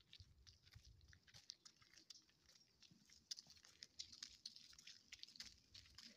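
Near silence, with faint, irregular crunching of footsteps on a dirt road.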